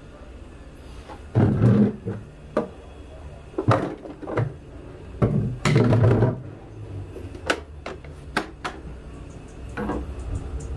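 Clunks and knocks from a plastic portable travel toilet being handled, a few loud ones in the first six seconds, then several lighter, sharper taps.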